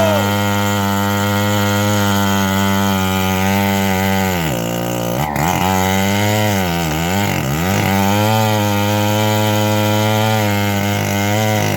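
Engine driving a homemade bandsaw sawmill, running steadily while sawing a mahogany log. Its pitch dips and recovers several times around the middle, then settles again.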